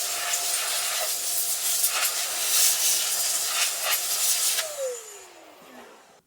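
Electric air duster blowing dust off a dirty laptop part: a loud rush of air over a steady motor whine, which cuts off about four and a half seconds in and winds down with a falling whine.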